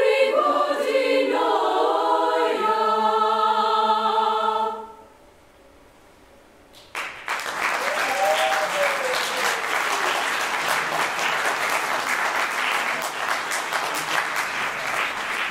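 Girls' choir holding the final chord of the piece, released about five seconds in. After a brief silence, audience applause breaks out about seven seconds in and carries on.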